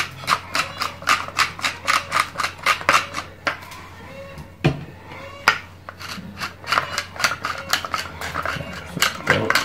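Wooden pepper mill being twisted to grind pepper: a quick run of dry clicks, about four a second. The clicks pause about three and a half seconds in, with a single knock, then start again and run until near the end.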